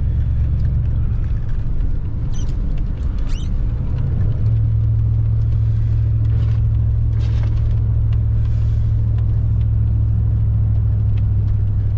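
Ram pickup truck driving, heard from inside the cab: a steady low engine and road rumble, with a steady low hum settling in about four seconds in. A few short high squeaks and brief swishes come through over it.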